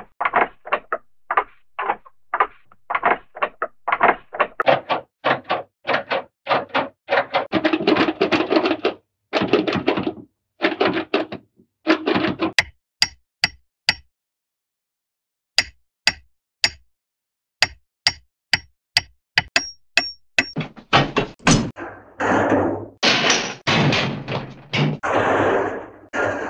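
Hanna-Barbera cartoon door sound effects played one after another: a quick run of door knocks and thuds, then about halfway through a string of sharp clicks with a thin ring, and in the last few seconds longer, noisier door sounds.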